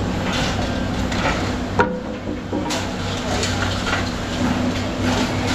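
Metal clanking and scraping as workers handle tools and parts on a scrap shear, with one sharp metallic clank a little under two seconds in that rings briefly. A steady machine hum runs underneath.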